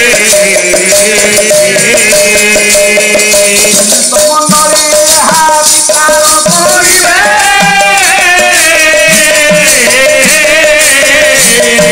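Odia Pala ensemble music: hand cymbals jingling steadily under a wavering melody over a held drone note.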